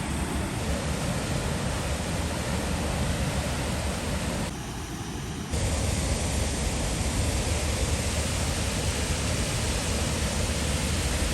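Steady rushing of a waterfall on the Big Sioux River, drops quieter for about a second midway.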